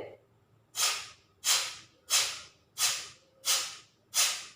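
A woman's forceful exhalations through the nose in kapalabhati (fast-breath pranayama): six short, sharp hissing puffs, evenly spaced at about one and a half a second.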